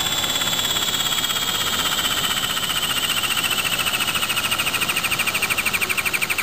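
Stanley CTB12 cordless cable tool running under power, its motor giving a steady high whine that sinks slowly in pitch as it takes on load. The whine takes on a pulsing throb near the end.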